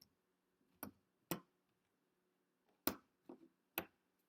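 Speed cube being turned by hand: about five short, sharp plastic clicks of the layers snapping round, spaced irregularly.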